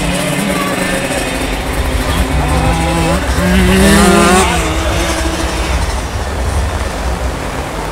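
Simson 60cc single-cylinder two-stroke moped engines revving on a motocross track, their pitch rising and falling as the riders work the throttle. The engines are loudest about four seconds in.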